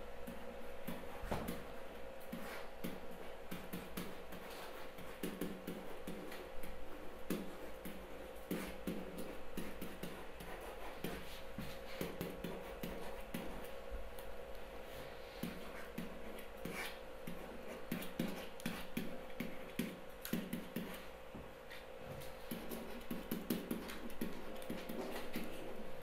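Stylus tapping and scratching on a digital writing surface during handwriting: a run of small, irregular clicks over a steady low hum.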